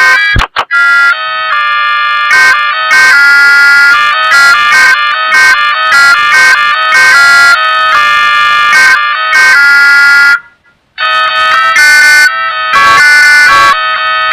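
Panasonic KX-TV1311AG phone ringtones altered with an audio effect: loud electronic melodies of buzzy, many-toned notes that change pitch every fraction of a second. One tune stops about ten and a half seconds in and, after a short pause, another begins.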